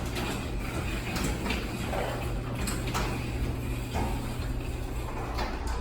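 Chamberlain belt-drive garage door opener lowering the door on its newly fitted belt: a steady motor hum with the rumble of the door rolling down its track. It stops abruptly near the end as the door reaches the closed limit.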